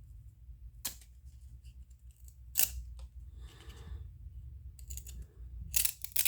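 Baseball cards and their pack wrapper being handled: several sharp clicks and snaps, with a short rustle about three seconds in and the loudest snaps near the end.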